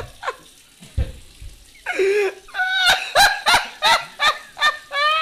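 A man coughing and gagging over a sink, choking on a mouthful of dry ground cinnamon. The coughs come as a rapid run of loud, voiced hacks, several a second, starting about two seconds in.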